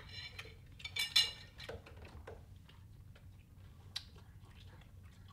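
A few light clinks and clicks in a small room, loudest as two short ringing clinks about a second in, with a sharp click near the four-second mark.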